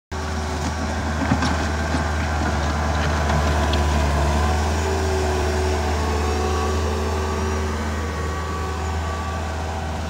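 Bobcat S450 skid-steer loader's diesel engine running steadily as it works a pile of soil, with a short knock about a second in.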